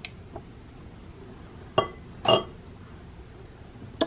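Metal kitchen tongs with silicone tips clinking against the egg steaming tray and the cooker pot as hard-boiled eggs are picked out. A handful of short, sharp clinks, the loudest pair about two seconds in and two more near the end.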